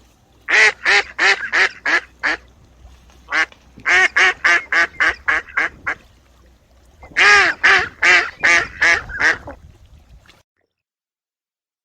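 A duck quacking in three quick series of loud, nasal quacks, the series mostly fading as they go. The recording cuts off abruptly near the end.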